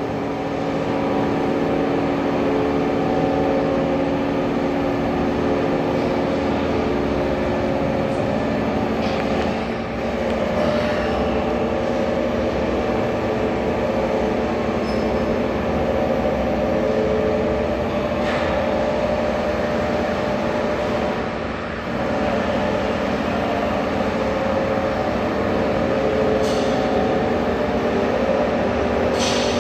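Pipe bending machine running in operation: a steady mechanical hum with several held tones, dipping briefly twice, with a few short hisses or clanks.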